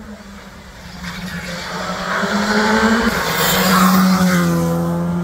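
Rally car engine at high revs, driving past on a tarmac stage. It grows louder as the car approaches, peaks about four seconds in, then falls in pitch as the car goes by.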